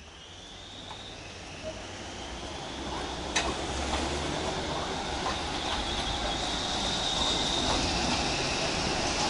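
Tram passing close by, getting steadily louder as it comes up, its wheels squealing on the rails in a high steady whistle that is strongest in the second half. Scattered clicks of the wheels over the track, one sharp click about three seconds in.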